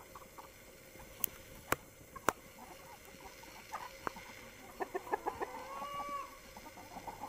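A flock of chickens clucking, the short calls bunching up in the second half with one longer drawn-out call about six seconds in. A few sharp clicks sound in the first half.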